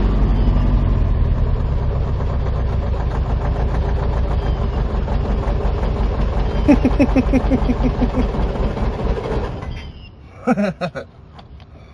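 Chevrolet S10's 2.5-litre four-cylinder engine running with a knock that the owner takes for rod knock, then cutting off about ten seconds in. A brief burst of voice follows near the end.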